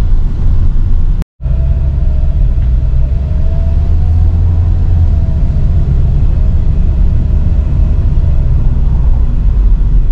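Loud, steady low rumble of a car on the road, with a faint whine that wavers slightly in pitch through the middle. A brief dropout comes about a second in.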